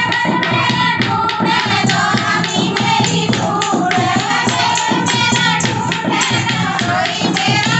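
A group of women singing a Haryanvi folk song together, with a steady beat keeping time under the voices.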